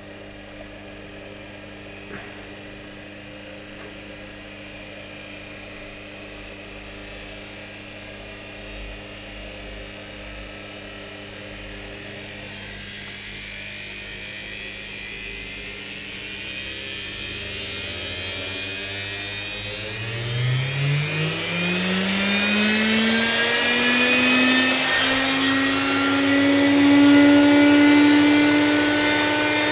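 Old washing machine motor running under electronic speed control: a low steady hum at first, then from about twenty seconds in it speeds up, with a whine that rises in pitch and grows louder before levelling off at high speed.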